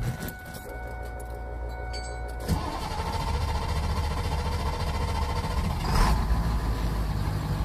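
Semi truck's engine starting and settling into a steady idling rumble that becomes fuller and louder about two and a half seconds in, with a brief louder swell near the end.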